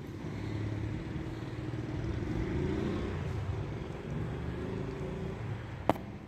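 A motor vehicle's engine passing, its rumble swelling and then fading, followed by a single sharp click shortly before the end.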